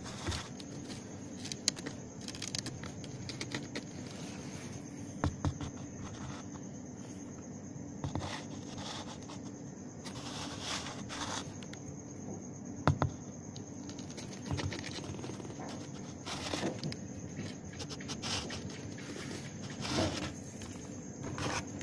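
A kitten's paws and claws stepping and scraping on the cardboard floor of a box: scattered soft taps and scratches, the sharpest about 13 seconds in, over a steady faint hiss.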